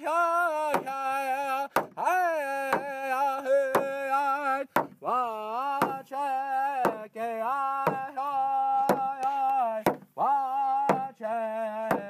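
A man singing a Native American song in long held notes that scoop down at the start of each phrase, over a steady drum beat of about one stroke a second.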